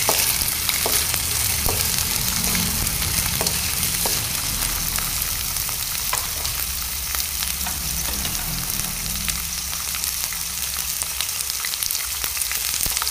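Yard-long beans sizzling steadily as they stir-fry in hot oil in a pan, with scattered light clicks.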